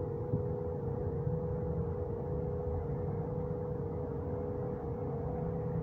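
Electronic drone from a synth or looper: one steady held tone with a slight pulse over a low rumble.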